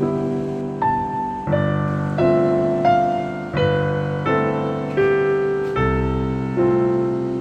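Background piano music: a slow melody of single notes and chords, each struck and left to ring.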